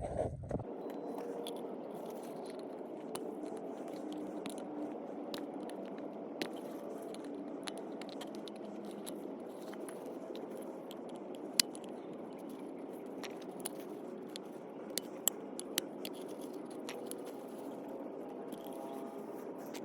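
Small scrapes and sharp clicks of a flathead screwdriver prying the old rubber gaskets off a plastic oil filter cap, over a steady background hiss. One click stands out about halfway through, and a few more come close together later on.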